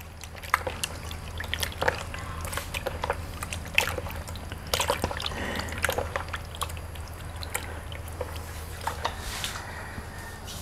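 Hands squeezing and rubbing raw chicken breasts in a plastic basin of water: irregular wet squelches, splashes and drips.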